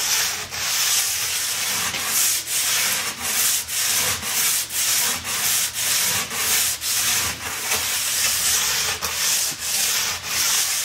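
Hand tuning tool scraping the plastic sidewall of a ski in quick, even rasping strokes, about two or three a second. The sidewall is being cut back because it stands out past the steel edge.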